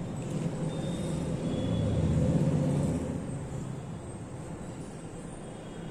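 A motor vehicle passing: a low engine rumble that grows louder to a peak about two to three seconds in, then fades away.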